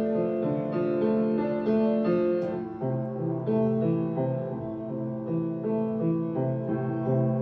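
Background music: a piano piece of held notes that change every half second or so, with a lower bass note coming in about three seconds in.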